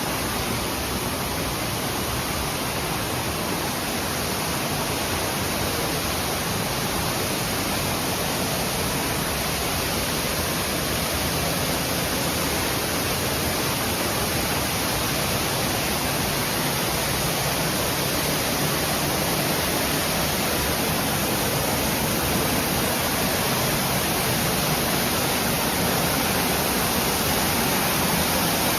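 Steady, even rushing of Nabegataki waterfall's falling water, slowly growing a little louder.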